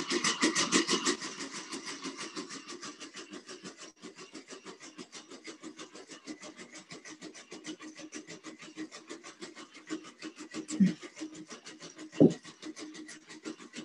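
Quadruped robot dog's leg motors and feet making a rapid, even patter with a steady motor whine as it steps under self-navigation, louder for the first second. Two brief louder knocks come near the end.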